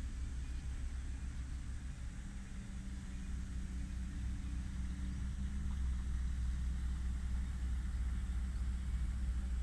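Engine of heavy debris-clearing machinery running as a steady low hum, with a higher tone joining about two seconds in and dropping away near the end.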